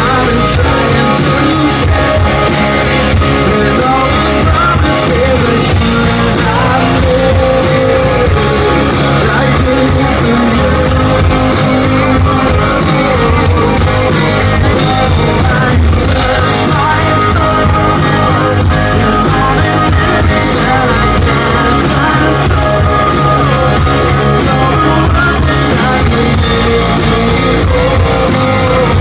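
Live rock band playing, with loud electric guitars and drums and some singing, recorded from the crowd.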